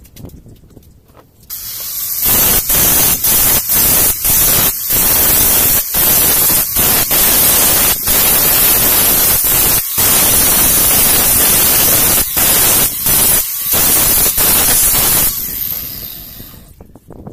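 Handheld angle grinder grinding a welded joint on a steel square-tube frame: a loud, steady, hissing grind that starts about a second and a half in and is broken by many very brief breaks. It winds down near the end.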